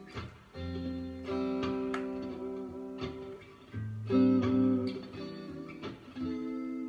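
Stratocaster-style electric guitar playing chords and picked melodic phrases, with low bass notes sounding underneath.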